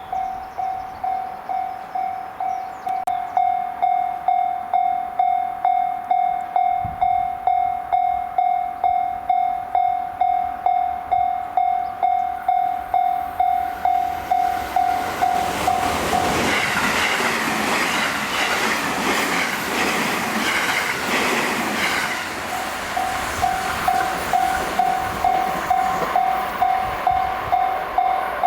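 Japanese level-crossing alarm ringing a steady, fast repeating ding. About sixteen seconds in, a JR Hanwa Line train passes at high speed, and its rushing wheel and air noise drowns the bell for about six seconds before the bell rings on.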